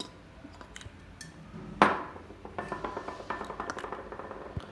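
Metal clinking and rattling as an aerosol can and a crimp-measuring gauge are handled: a few light clicks, a sharp ringing clink about two seconds in, then a run of fast light metallic ticks.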